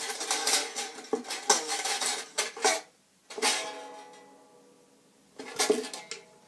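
Music on a plucked string instrument with clattering: a busy stretch for about three seconds, a short break, then two single strums that ring out and fade.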